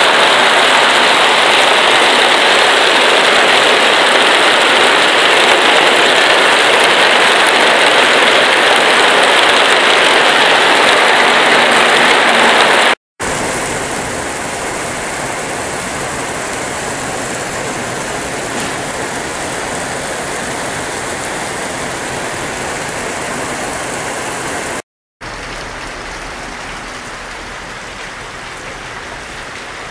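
Rain falling on polycarbonate roofing sheets, a dense, even patter. It is loudest for the first dozen or so seconds, then breaks off abruptly into a quieter patter on a ribbed sheet, and about 25 seconds in it breaks off again into a softer patter on a curved roof.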